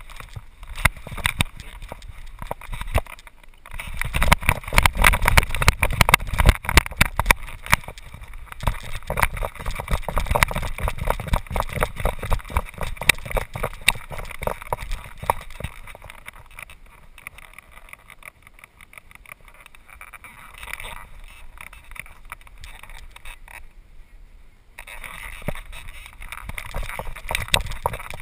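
Camera-mount handling noise from a GoPro strapped to a moving dog's harness: a dense run of knocks, scrapes and rattles with a low rumble as the dog moves. It is loudest in the first half and quieter later, with a lull of about a second near the end.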